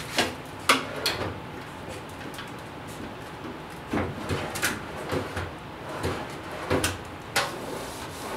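Steel tool-cart drawers being pulled open and pushed shut while bagged parts are lifted out, heard as a series of separate clunks and knocks, about eight in all.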